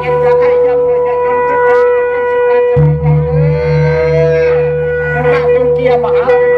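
Music with a steady held drone and a plucked string instrument, with a low pulsing beat coming in about three seconds in.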